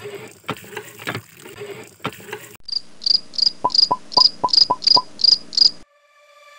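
A cricket chirping: an even run of short, high chirps, about three or four a second, that starts and stops abruptly, after a few faint clicks.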